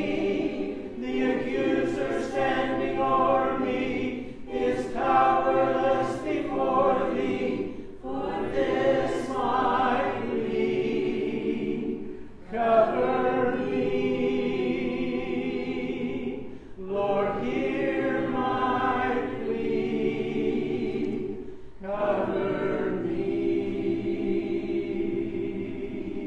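Church congregation singing a hymn a cappella, many voices together in harmony, in sung phrases with short breaks between them.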